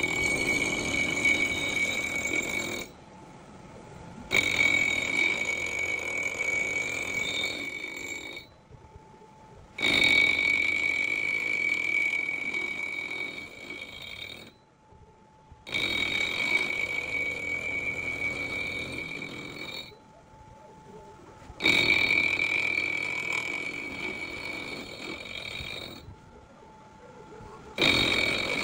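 End mill on a vertical milling machine cutting into a cast crankshaft counterweight, trimming it for balancing. The cut gives a steady high-pitched squeal in five passes of about four to five seconds each, each starting loud and tapering off, with short quieter gaps between them.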